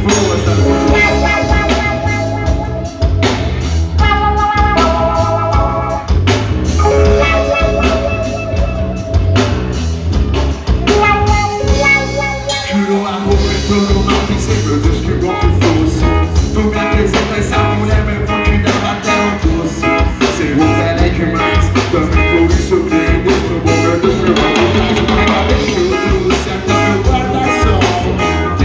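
Live rock band playing through a PA: electric guitar and drum kit with a steady beat, and a singer's vocal over the top.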